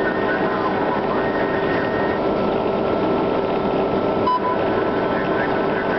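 Humvee's V8 diesel engine and tyres running at a steady highway cruise, heard from inside the cab, with a steady whine through it. A short beep sounds about four seconds in.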